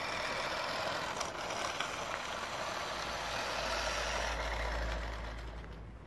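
Toy remote-control monster truck driving over asphalt: a steady whirr of its electric motor, gears and plastic tyres, fading near the end as it slows. A low rumble joins in from about halfway.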